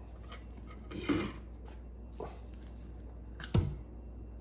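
Light knocks and clinks as trolling-motor parts (armature, shaft and end cap) are handled on a workbench, with one sharper clack about three and a half seconds in, as the end cap comes off the armature shaft.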